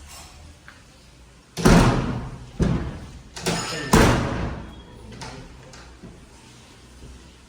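A door fitted with a smart mortise lock being shut hard: four heavy thuds and clunks in about two and a half seconds, with a short metallic rattle among them.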